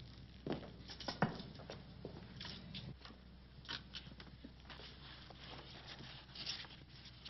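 Scattered soft knocks, taps and rustles of movement in a room, the sharpest knock a little over a second in, over a steady low mains hum from an old television soundtrack.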